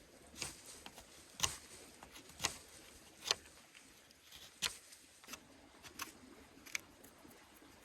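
Sharp cracks and crunches of dry twigs and forest litter, about one a second at an uneven pace.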